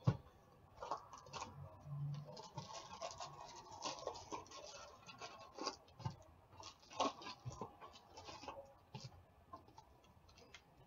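Foil hockey card pack wrappers crinkling and tearing, and trading cards being shuffled and handled by hand: a faint, irregular run of short crackles and scrapes.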